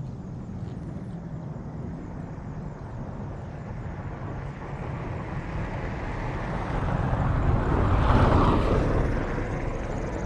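A motor vehicle passing by: its noise swells over a few seconds to a peak about eight seconds in, then fades away, over a steady low rumble.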